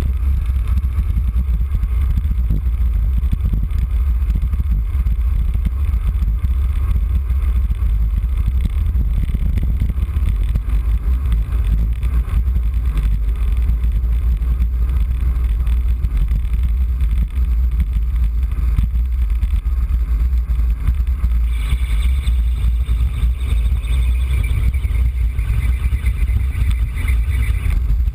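Wind buffeting the microphone of a bike-mounted camera on a fast road-bike descent, a steady low rumble. A high, slightly wavering squeal joins it for several seconds near the end.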